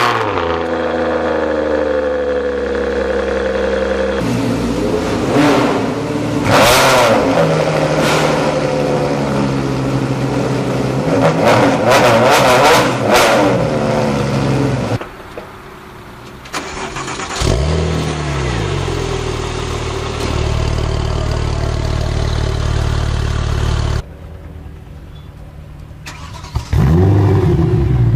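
A string of sports-car engines starting and revving through the exhausts: a Ferrari 599 GTO V12 settles from its start-up flare into a steady idle, then a Ferrari track car revs hard several times with rising and falling pitch. Another engine starts with a short flare and settles to idle, and near the end a Wiesmann roadster fires up.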